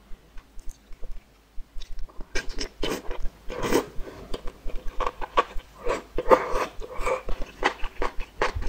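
Close-miked eating of spicy noodles: after about two seconds of near quiet with a few light clicks, a slurp of noodles, then rapid wet chewing full of small mouth clicks.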